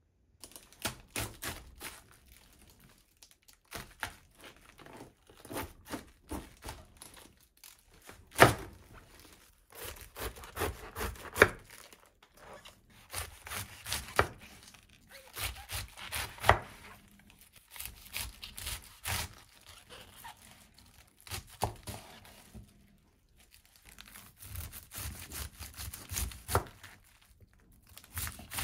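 Kitchen knife chopping cabbage on a wooden cutting board: crisp crunches through the leaves and knocks of the blade on the board, in quick runs broken by short pauses.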